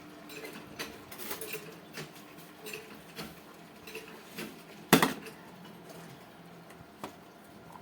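Light scattered clicks and taps of small tools and metal parts being handled while soldering a wire bridge across a dead LED on an LED lamp's board, with one sharp, louder click about five seconds in.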